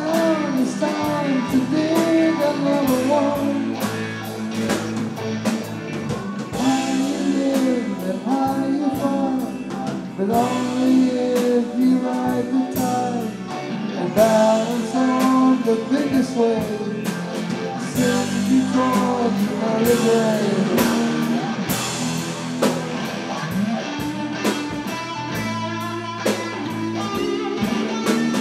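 Live rock band playing: sung vocals over guitars and a drum kit. The singing drops out near the end, leaving the guitars and drums.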